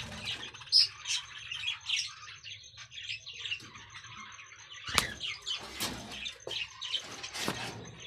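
Lovebirds chirping, a busy run of short, high calls, with a sharp knock about five seconds in.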